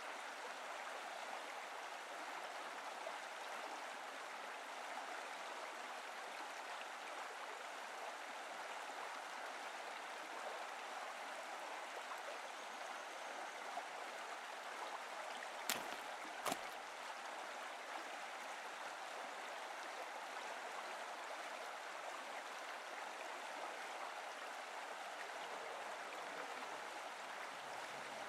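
Shallow creek running over rock ledges, a steady rush of water. Two short sharp clicks about a second apart come a little past the middle.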